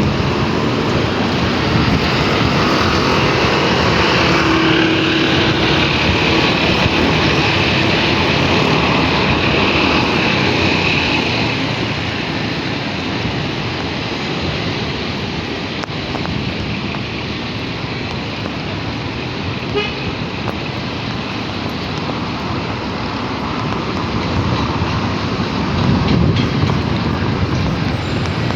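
Road traffic noise with a rush of wind, heard while riding along a road. A steady droning tone sits over it for the first ten seconds or so, then fades.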